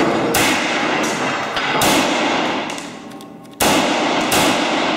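ISSC M22 .22 LR semi-automatic pistol firing Geco rounds: several sharp shots at irregular intervals, each with a short echo, and a pause of nearly two seconds between two groups of shots.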